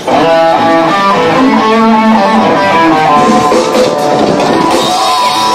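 Live rock band playing loud, with electric guitar out front, kicking in right at the start; the camcorder microphone is overloaded by the volume, so the sound is distorted.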